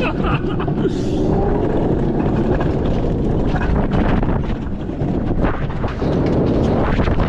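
Alpine coaster cart running fast along its steel rail: a loud, steady rumble of the wheels on the track, with wind buffeting the microphone.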